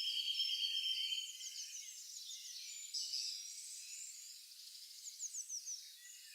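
Forest insects and birds: a steady high insect buzz that fades out about a second in, with many short, falling bird chirps throughout.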